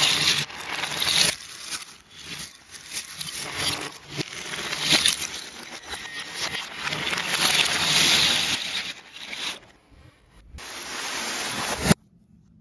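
Loose plastic puzzle-cube pieces rattling and a plastic zip-top bag crinkling as they are handled and shaken, a dense clattering that swells and fades, ending in a sharp knock after which it cuts off.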